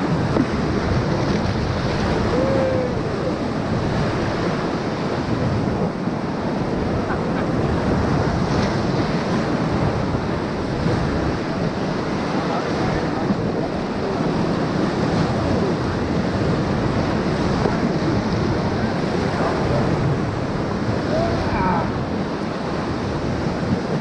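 Whitewater rapids rushing steadily around and against an inflatable paddle raft as it runs through them, heard up close from the boat.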